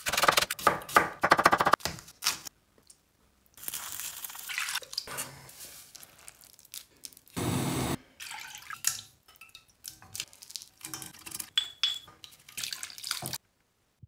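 Kitchen cooking sounds: a knife slicing scallion on a wooden cutting board in a quick run of strokes, then water pouring and dripping with scattered light clicks and knocks, cutting off suddenly near the end.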